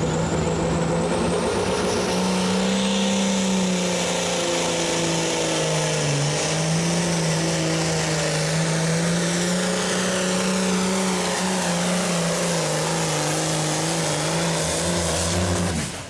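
Hot farm stock pulling tractor's diesel engine running flat out under full load as it drags the weight-transfer sled, its pitch dipping slightly about six seconds in and then holding steady. The sound cuts off suddenly at the very end.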